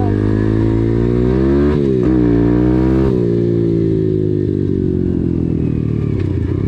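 KAYO TD125 dirt bike's 125cc four-stroke single-cylinder engine under way. Its pitch climbs, breaks and climbs again near two seconds in as the rider shifts up, then drops about three seconds in and winds steadily down as the throttle closes and the bike slows.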